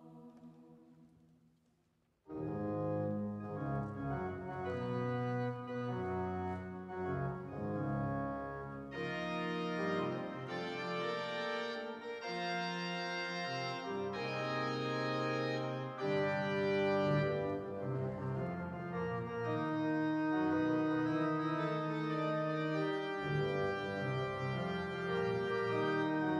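The last of a boys' choir's chord dies away. About two seconds in, a Viscount digital church organ comes in suddenly and loudly with full sustained chords, changing harmony every second or so.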